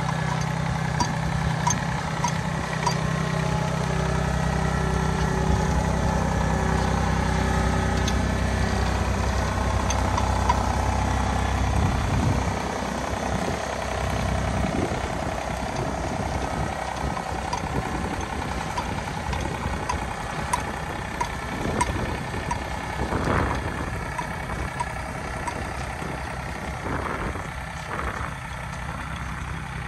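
John Deere 855 compact tractor's small three-cylinder diesel engine running steadily at low speed as it drives across a tilled field, growing somewhat quieter about halfway through as it moves off.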